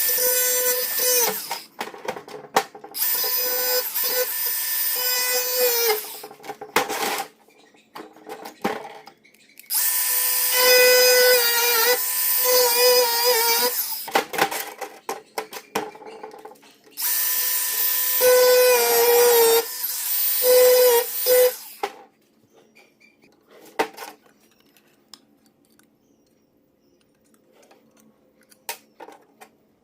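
Electric power saw cutting sheet steel in four bursts, each a high whine with a metallic rasp. The last burst stops a little past two-thirds of the way through, and only a few light clinks follow.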